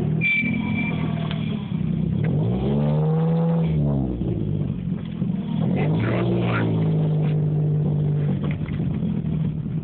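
Car engine running, its pitch rising and falling as it revs up and eases off, once about two and a half seconds in and again around six seconds in.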